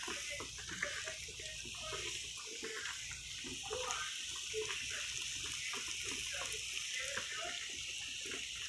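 Floured pork medallions sizzling in hot oil in a skillet as the pieces are laid in: a steady hiss with faint scattered crackles.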